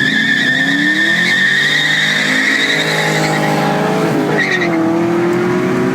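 Holden Commodore SS Gen III LS1 V8 launching hard from a standing start, its tyres squealing in wheelspin for about the first three seconds. The engine revs climb, drop at a gear change about four seconds in, then climb again.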